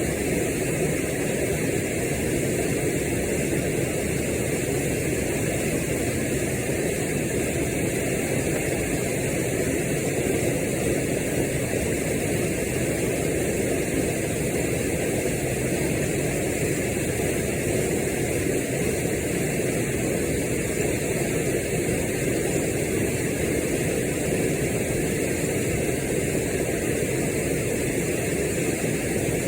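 Steady rushing of a waterfall and fast-flowing river water, an even noise that does not change.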